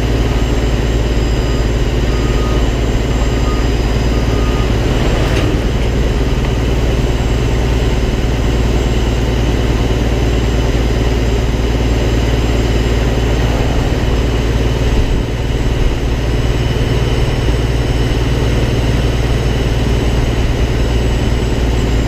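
Peterbilt semi truck's diesel engine and tyres running at a steady road speed, a constant low drone.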